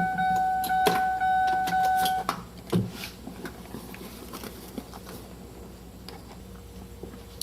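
Power window motor in a Mercury Sable front door running the glass with a steady whine, cutting off a little over two seconds in, followed by a knock and scattered clicks of parts being handled.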